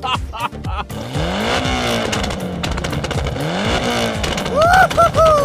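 A vehicle engine revving up twice, its pitch rising and then holding, followed near the end by a higher pitch that rises and falls.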